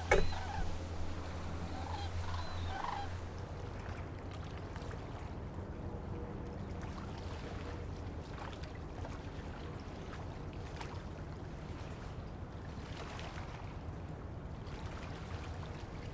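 A sharp knock at the very start, then a low steady hum with a few short bird calls for about three seconds. After that comes a steady wash of water and wind noise from a ship under way on the river.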